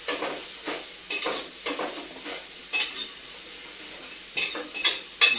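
Sliced onions sizzling in coconut oil in a pressure cooker while a spoon stirs and scrapes the pot, about two strokes a second. There are a few sharper clinks near the end.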